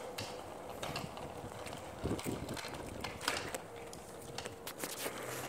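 Small child's bicycle with training wheels rolling over rough, cracked concrete, its wheels, chain and training wheels giving off irregular clicks and rattles.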